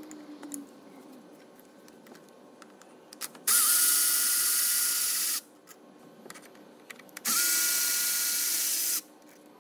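Cordless power tool spinning out the throttle-body bolts: two runs of about two seconds each of steady motor whine, each rising briefly in pitch as it starts. Small handling clicks fall between them.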